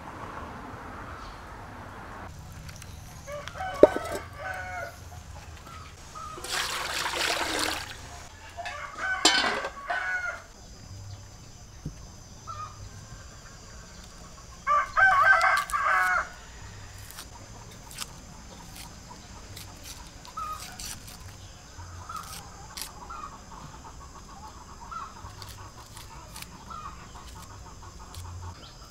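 Domestic chickens: a rooster crowing several times, about four, nine and fifteen seconds in, the last the loudest and over a second long, with soft clucking later on. A short rush of noise comes around seven seconds in.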